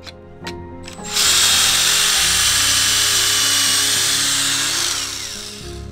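Ryobi cordless drill boring a pocket hole through a wooden 2x board held in a pocket-hole jig. After a few short clicks, the drill runs loud and steady for about four seconds, then dies away.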